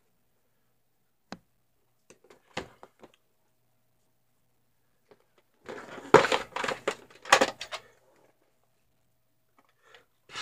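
Plastic VHS tape cases being handled against a shelf: a few separate clicks and knocks, then a denser run of knocks and scraping about six to eight seconds in.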